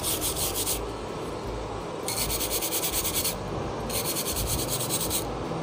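Stiff scrubbing brush scraped rapidly back and forth over the solder side of a circuit board, in three bouts with short pauses. It is clearing solder residue from between the freshly soldered amplifier IC's pins so they cannot short together.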